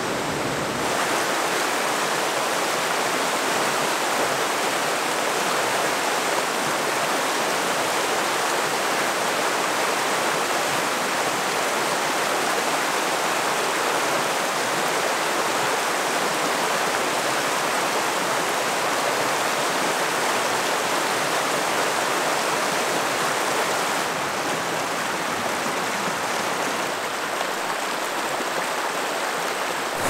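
Steady rush of river water falling over waterfalls, a dense even noise with no other events. Its tone shifts slightly about a second in, and it is a little quieter in the last several seconds.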